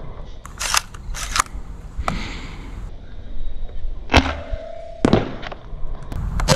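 ZWQ S200 Fire Rat spring-powered Nerf pistol being worked and fired: about half a dozen sharp clacks and snaps spread over several seconds, with a dart shot a little past four seconds.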